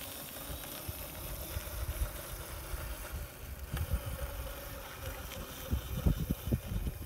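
Faint steady whine of a Razor MX250 electric dirt bike's motor and chain drive as it rides along, under low wind rumble on the microphone that gusts harder about six seconds in.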